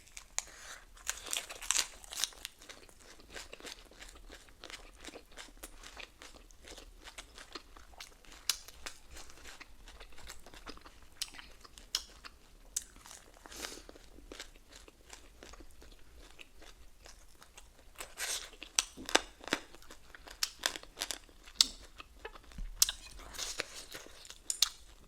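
Close-up eating sounds: a person chewing and biting into ramen, pork and lettuce, with crisp crunching. The louder crunchy bites come in clusters near the start, about 18 seconds in, and near the end.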